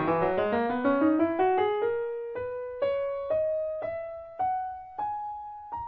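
Schimmel grand piano played solo. A line of single notes climbs steadily, slowing as it rises, each note ringing and fading. It ends on a held note that dies away.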